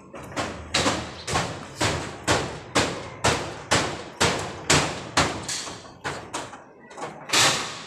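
Hammering on corrugated metal roofing sheets, a steady run of about two blows a second, each ringing briefly: the roof is being knocked loose and stripped for demolition.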